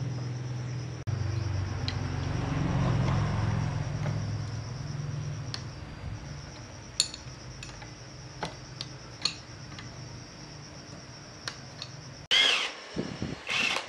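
A machine motor hums, swells a little, then winds down over several seconds. Scattered light metallic clinks of tools follow, then a loud, harsh screeching scrape near the end.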